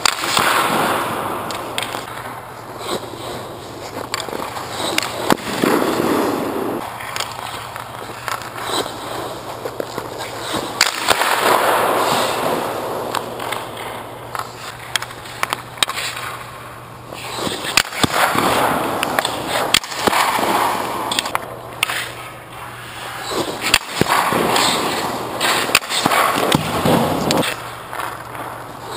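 Hockey goalie's skate blades scraping and carving the ice in repeated surges as he pushes and slides across the crease, with a few sharp knocks on the ice.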